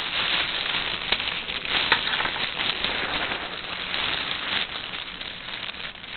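Close rustling and crackling handling noise, with many small clicks: fabric rubbing over the microphone of a camera worn on the body. It is strongest about two seconds in and eases off near the end.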